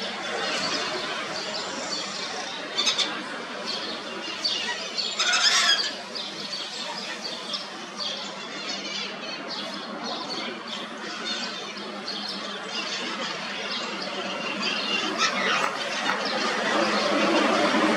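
Birds calling and chirping over a busy outdoor background, with a louder harsh call about five seconds in.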